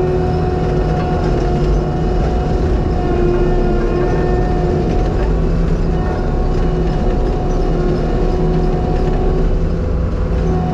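Skid steer's engine running steadily at working throttle, with a steady whine over the engine rumble that fades briefly about halfway through.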